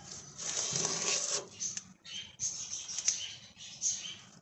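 Masking tape being peeled off a steel fuel tank in several short, crackling pulls, its adhesive gone gummy from petrol vapour.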